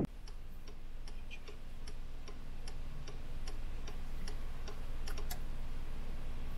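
Car indicator flasher ticking evenly, about two and a half clicks a second, inside the cabin of a stopped car, over the low steady hum of its idling engine.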